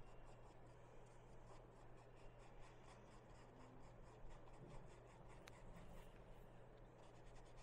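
Faint soft scratching of a paintbrush stroked back and forth across canvas, blending acrylic paint, at about four strokes a second, over a low steady hum.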